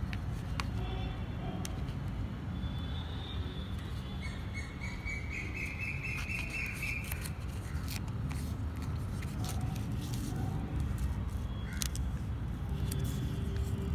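Steady low rumble with scattered light clicks and crinkles from a paper sticker label being peeled off its backing and smoothed down by hand.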